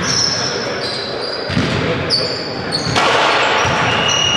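Basketball being played: shoes squeak sharply on the court again and again, the ball bounces, and players' voices call out.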